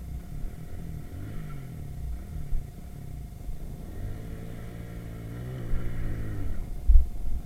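Irbis Virago 110cc moped's four-stroke single-cylinder engine running under way, its pitch rising and falling with the throttle, climbing about five to six seconds in before dropping off. Wind rumbles on the microphone, with a short low thump near the end.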